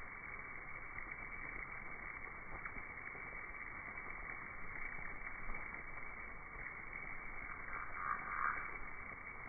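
A large swarm of Brazilian free-tailed bats streaming out of their cave: a dense, steady crackling chatter of calls and wingbeats, slowed down with the slow-motion footage so nothing is heard above a fairly low pitch. A louder flurry comes about eight seconds in.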